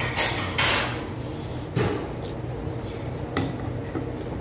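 A person slurping hot beef short-rib soup (galbitang), two short slurps at the start, followed by a few sharp metal clicks of kitchen scissors and tongs cutting meat in a stone pot.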